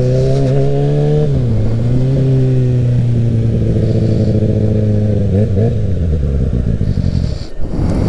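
Kawasaki ZX-6R sport bike's inline-four engine running at steady low revs on the move. It eases off about a second in, picks up briefly around five and a half seconds, then winds down near the end as the bike slows.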